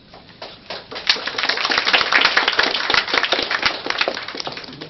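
A small group of people applauding. The clapping starts about half a second in, swells to a dense peak, then thins out and stops near the end.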